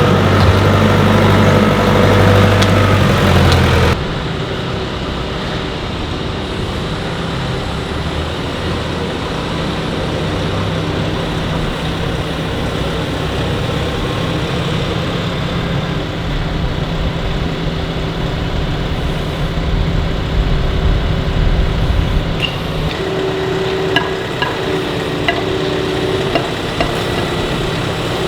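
Wheeled excavator's diesel engine running steadily with a hum. The sound drops suddenly to a lower level about four seconds in. A higher tone and a few sharp clicks come in near the end.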